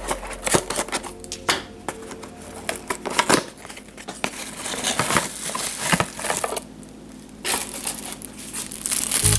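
Cardboard box flaps and packaging handled and pulled open, with scattered clicks and scrapes, then a clear plastic bag crinkling in the second half as the wrapped model comes out.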